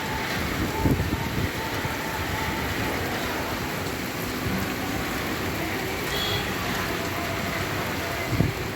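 Torrential rain falling steadily, with a couple of brief low rumbles about a second in and near the end.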